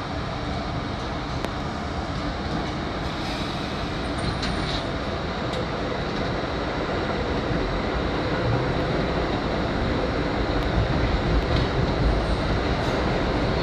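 R32 subway train standing with a steady rumble, then starting off and accelerating into the tunnel, its running noise growing louder over the last few seconds.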